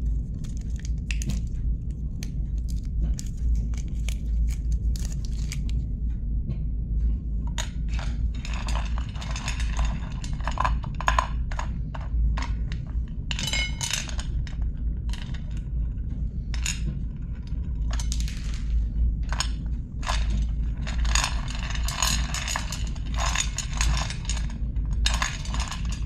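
Chocolate bar wrappers being handled and torn open: sharp crackles and crinkling rustles that come in bursts, densest in several stretches of a second or more, over a steady low hum.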